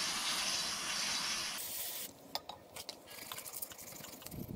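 Aerosol parts-cleaner spray hissing onto a motorcycle brake lever, stopping about two seconds in; then a small wire brush scratching at the lever in short scattered strokes.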